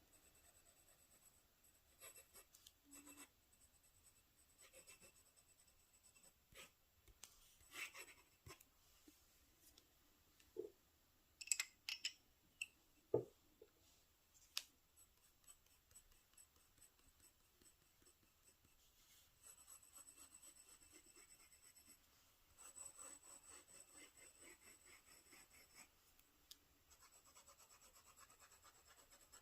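Pen nib scratching across paper in strokes of writing, faint, with a few light clicks and taps in the first half and longer stretches of steady scratching in the second half.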